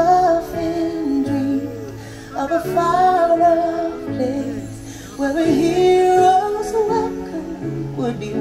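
Music: a slow song sung in long, wavering held notes over sustained instrumental backing.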